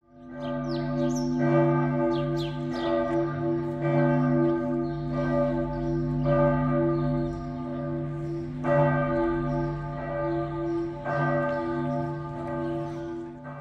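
Several large church bells pealing: repeated strikes about once a second over the steady hum of their ringing.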